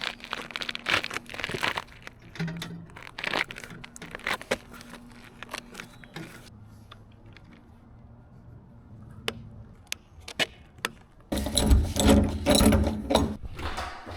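Work noises: a run of sharp clicks, knocks and scrapes, then a louder stretch of rattling and rumbling handling noise starting about eleven seconds in.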